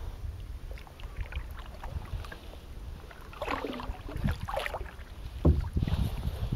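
Wind rumbling on the microphone of a camera on a kayak's bow, with water moving around the small boat. A brief wavering sound comes near the middle, and a single knock about two-thirds of the way in is the loudest moment.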